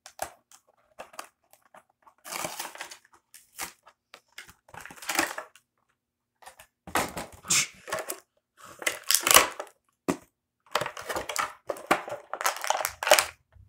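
Clear plastic Bakugan toy packaging crinkling and crackling in the hands as it is pulled open, in irregular bursts, loudest about nine seconds in and again near the end.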